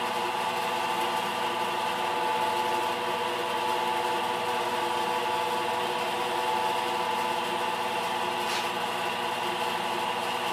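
Force International knee mill, converted to CNC, running steadily: its spindle motor gives a whine of several steady tones over a constant mechanical hiss. A short sharp click about eight and a half seconds in.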